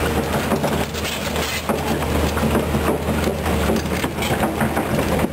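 Kobelco SK200 hydraulic excavator's diesel engine running steadily as the machine crawls up a slope, with irregular clanks from its steel crawler tracks.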